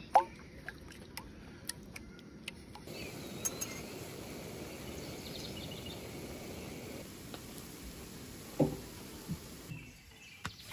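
Eggs cooking in a frying pan on a camp stove, with sharp clicks and knocks of eggshells and a utensil against the pan. There is a loud crack just after the start, a steady frying noise through the middle, and a louder knock near the end.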